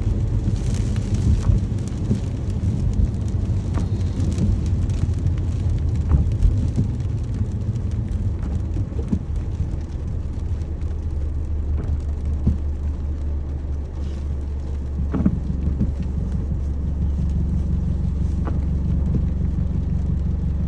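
Steady rain with scattered sharp drop ticks over a continuous low rumble.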